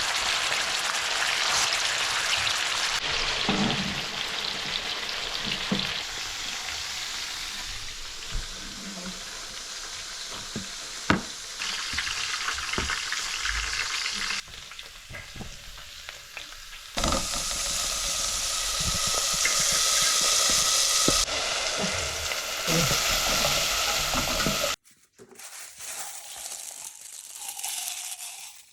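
Food frying and sizzling in hot oil in a pan, with stirring and occasional sharp utensil knocks against the pan. The sizzle stops abruptly about 25 seconds in, leaving only quieter, intermittent sounds.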